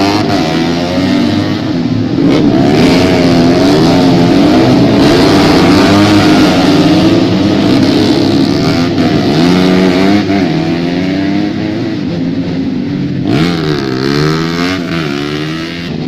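Several tuned racing motorcycles running at high revs together, their engine notes rising and falling as they accelerate, shift and pass. Near the end one engine's pitch dips sharply and climbs again.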